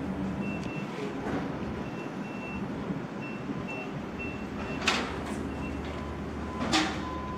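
Gas station forecourt sounds: a steady low hum, short high beeps coming on and off, and two sharp clicks about five and seven seconds in.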